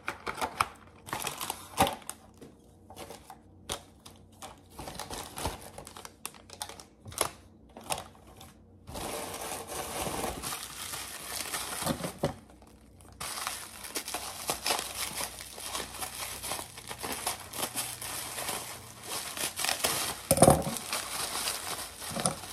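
Packaging crinkling and rustling as parcels are handled and opened by hand. At first there are scattered clicks and short rustles, then from about nine seconds in a denser, continuous crinkling with a brief pause.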